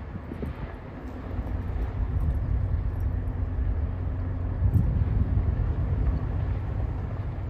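Low rumble with a faint steady hum from the Canadian Coast Guard icebreaker Griffon's engines as the ship passes.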